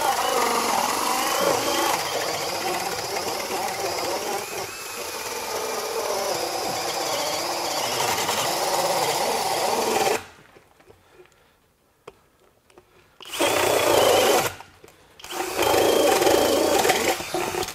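FLEX 24V hammer drill driver in turbo mode, speed two, boring a 2 9/16 inch self-feed bit through pressure-treated lumber: the motor and bit run under heavy load for about ten seconds and stop abruptly. After about three seconds of near silence it runs again in two shorter bursts.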